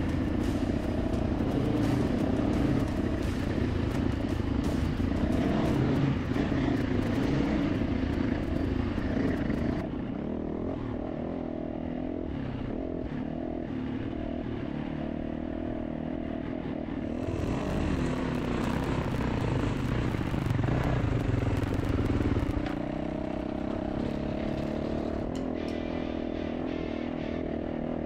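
Dirt bike engine running under a rider, revving and easing off in turn. It drops quieter about a third of the way in, picks up again, then settles to a steadier note near the end.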